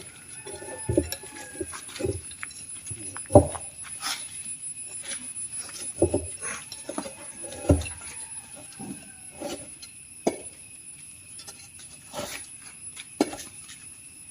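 A series of irregular knocks and thumps, the loudest about three seconds in, with lighter clicks between them.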